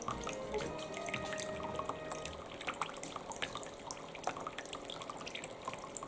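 Water trickling from the spout of a small pet drinking fountain into its plastic basin, with a steady run of quick drips and splashes.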